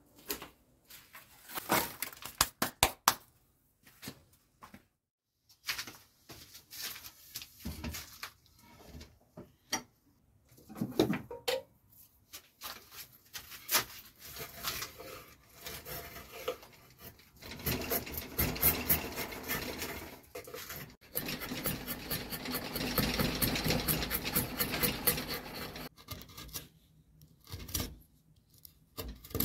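Hand tools scraping and filing a green acacia wooden handle, in repeated rasping strokes with short pauses, a long fast run of strokes in the second half. A few sharp knocks about two seconds in.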